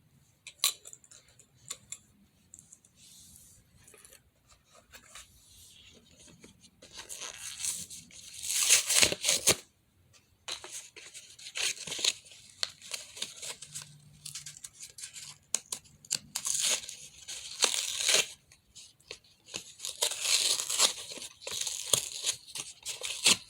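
Packaging of a fidget spinner being torn open by hand without scissors, crinkling and tearing in irregular bursts, sparse at first and heavier from about a third of the way in.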